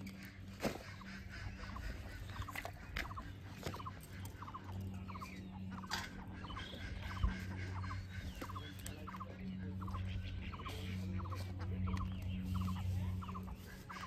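An animal calling in short stuttering bursts, about two a second, starting a couple of seconds in, over a steady low hum.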